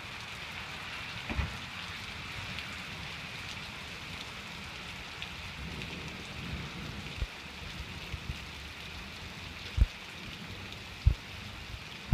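Steady storm rain falling on trees and a lawn, an even hiss throughout. A few brief low thumps break through, two louder ones near the end.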